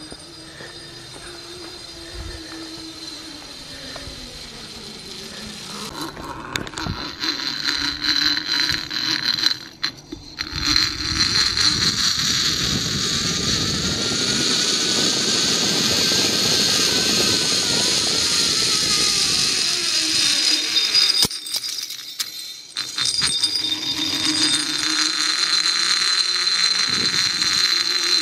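Zip-line trolley rolling along its cable, a loud whir whose pitch rises and then falls as the ride speeds up and slows. Wind rushes over the microphone. The sound drops off briefly about three-quarters through and then picks up again.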